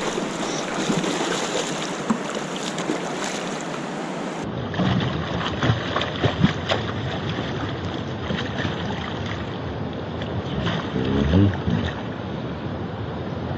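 A hooked fish thrashing and splashing at the water's surface beside the boat, over a steady rush of wind and water noise. The splashes come in short bursts, a cluster about five to seven seconds in and another near the end.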